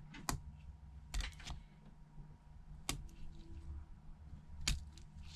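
Faint, scattered small clicks and taps: about five sharp ticks of a precision screwdriver and tiny screws against the metal bracket inside an iPhone 8, as the bracket screws are taken out.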